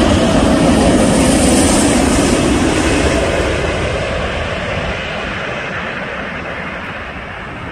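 Airbus A380 four-engine jet airliner passing low overhead on final approach, its engine noise loud with a whine dropping in pitch as it goes by. The noise fades steadily over the last few seconds as the aircraft moves away.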